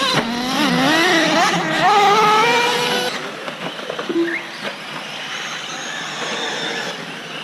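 Electric RC race cars' motors whining, the pitch rising and falling with throttle and climbing as they accelerate. About three seconds in the whine cuts off suddenly, leaving a fainter, even hiss with a brief short tone.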